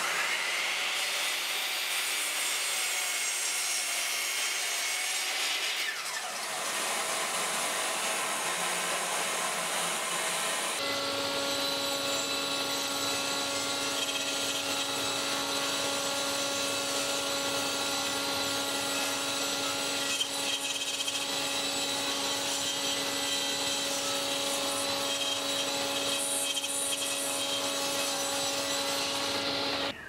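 A mitre saw crosscutting a wooden board, then, after a cut about a third of the way in, a table saw running steadily with a constant hum while a board is ripped along the fence.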